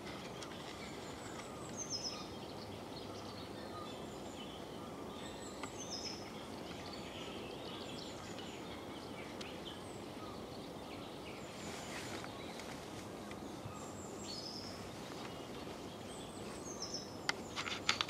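Small songbirds calling outdoors: short, high, falling chirps every few seconds over a steady background hiss.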